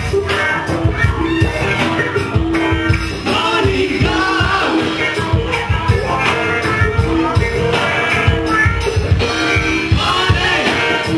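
Live rock band playing with a singer on microphone and guitar, a steady beat throughout.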